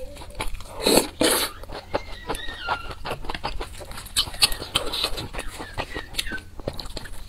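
Close-up eating sounds of pan-fried dumplings: two loud bites about a second in, then steady chewing with many small wet clicks and smacks.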